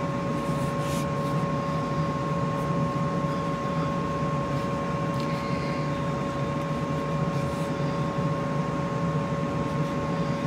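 Steady mechanical hum with two even, high tones held over it, like a motor running, and faint soft rubbing of hands rolling dough ropes on a wooden board.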